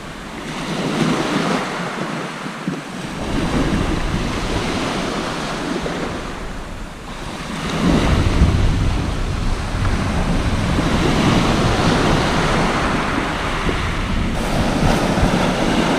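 Sea waves breaking and washing up a shingle beach, surging and easing every few seconds, with wind buffeting the microphone as a heavy rumble from about halfway through.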